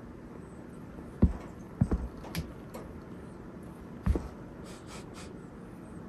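Kitten playing rough inside a wire cage: a few dull thumps, about a second in, twice around two seconds and again about four seconds in, as it pounces and bats at a hanging plush toy, with light taps and clicks near the end.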